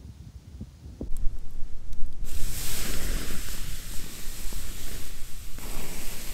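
Strong gusty wind roaring, with low rumbling buffeting on the microphone. About two seconds in, a loud rushing hiss of the gusts sets in suddenly and carries on.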